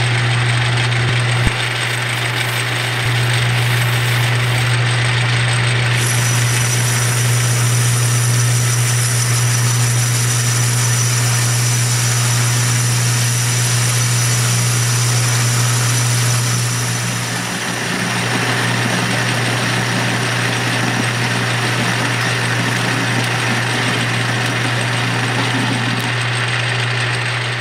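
Metal lathe running steadily with a strong motor hum while the cutting tool takes a facing pass across a metal pulley blank, a dense hiss of the cut over it. A thin high whine joins the cut about six seconds in and fades around eighteen seconds.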